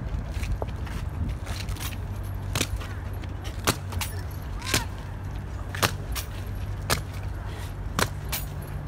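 Guards' boots stamping on wet stone pavement in a slow goose-step march, one sharp stamp about every second, over a steady low rumble.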